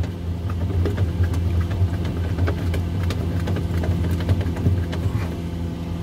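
Steady low hum of a running refrigerator, with its newly replaced evaporator fan motor spinning. A few faint clicks come from a hand screwdriver tightening a screw into the plastic interior panel.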